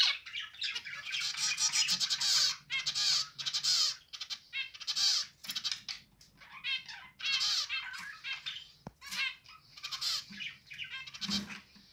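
Zebra finches calling, with many short chirps coming in quick clusters separated by brief gaps. There is a single soft knock near the end.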